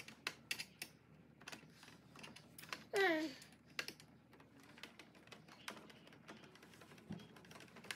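Light scattered clicks and taps of hands handling the plastic head of a Newgy Robo-Pong table tennis robot while refitting it and its screws. About three seconds in there is one short call that falls in pitch.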